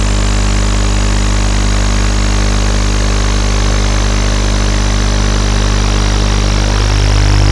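Emax Nighthawk FPV racing quadcopter's brushless motors spinning at idle while the quad sits on the ground, a steady buzzing whine with a high tone drifting slowly down. It gets a little louder near the end as the throttle comes up for takeoff.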